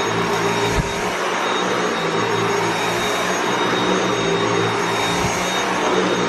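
Dyson V8 Absolute cordless stick vacuum running with its motorized brush head on carpet: a steady rushing noise with a thin high motor whine over it.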